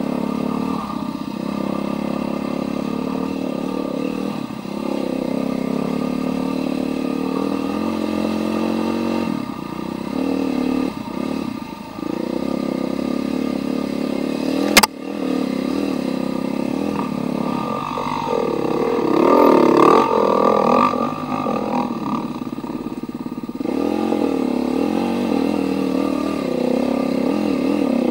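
Husqvarna TE310R dirt bike's single-cylinder four-stroke engine running under the rider, revs rising and falling with the throttle and climbing higher and louder about two-thirds of the way through. A single sharp knock about halfway.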